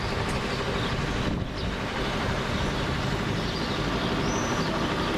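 Steady outdoor ambience over a town: an even rushing noise that dips briefly about one and a half seconds in.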